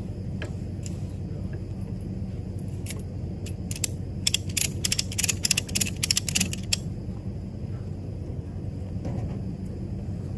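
Quick ratcheting clicks, about five a second for about three seconds starting about four seconds in, from the mechanism of a trailer's front-mounted electric winch being worked by hand. A steady low hum runs underneath.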